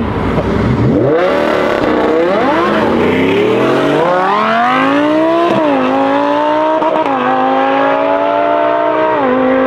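A Lamborghini Huracán's V10 and a supercharged Shelby Super Snake truck launching from a standstill in a drag race. The engines rev up through the gears, and the pitch drops at each upshift, three times in the second half.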